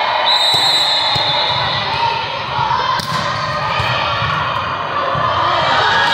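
Volleyball rally in a large gym hall: the ball is struck sharply about three seconds in, with fainter ball knocks and the steady, echoing hubbub of players and spectators behind it.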